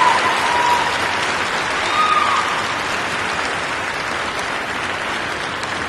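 Large arena crowd applauding, slowly dying down, with a brief cheer about two seconds in.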